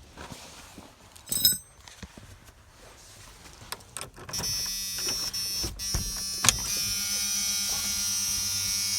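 A car engine being cold-started after sitting four weeks at 22 degrees: a few light clicks, then about four seconds in it comes to life and runs with a steady, buzzing drone with a high whine over it.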